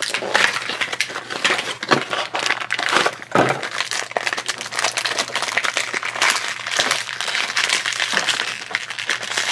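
A small cardboard blind box being opened by hand, then a plastic blind bag crinkled and squeezed between the fingers as it is worked open, a dense run of crackles with a few sharper ones in the first few seconds.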